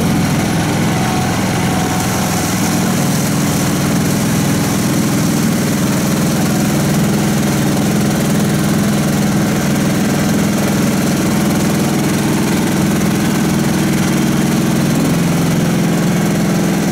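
Engine of a karakat all-terrain vehicle running steadily as the machine drives along, its tone shifting slightly near the end.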